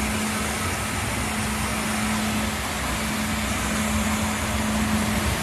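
Tennant T5e walk-behind floor scrubber running as it scrubs and squeegees a wet, oil-filmed concrete floor: a steady machine drone with a constant hum.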